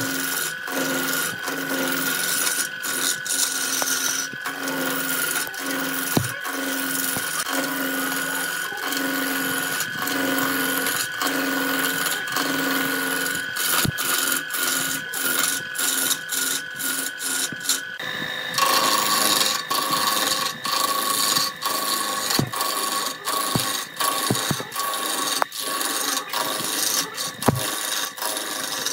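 Wood lathe turning a glued-up laminated blank while a hand-held gouge cuts it: continuous scraping and cutting with irregular clicks of tool chatter over a steady tone from the machine. The sound changes abruptly about eighteen seconds in, the steady tone dropping in pitch.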